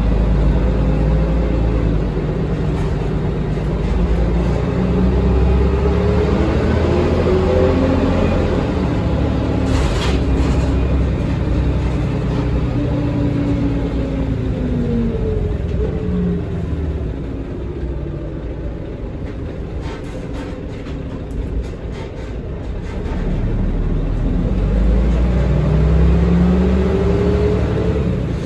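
Cabin sound of a 1986 MAN SL202 bus with a ZF Ecomat automatic gearbox on the move: a heavy low drivetrain rumble whose pitch climbs as the bus accelerates, drops away as it slows around the middle, then climbs again near the end. Two brief clicks come through about ten and twenty seconds in.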